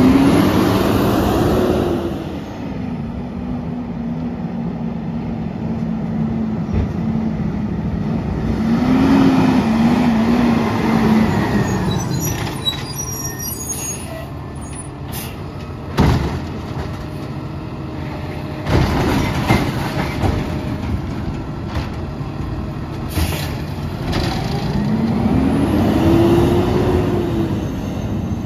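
Autocar ACX automated side-loader garbage truck at work: its engine revs up and settles three times as it runs the lifting arm and pulls between stops, steady in between. About halfway through come a couple of sharp knocks, typical of carts being tipped and set back down, and short air-brake hisses.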